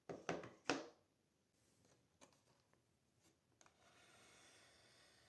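Three or four short scraping knocks in the first second, then a few faint clicks and, from about two-thirds of the way through, a soft steady rubbing sound.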